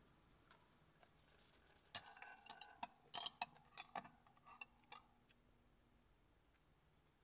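Small clinks of tableware being handled: a quick run of about a dozen light clicks over three seconds, the loudest in the middle with a brief ring.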